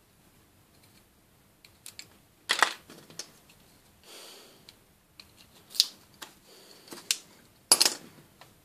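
Screwdriver prying the casing off a small magnetic-mount antenna base: scattered clicks and scrapes, with a few sharp snaps as the case gives way.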